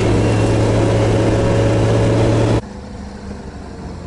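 All-terrain vehicle engine running loud and steady, heard inside the cabin while driving. About two and a half seconds in, it cuts abruptly to a quieter engine hum heard from outside the vehicle.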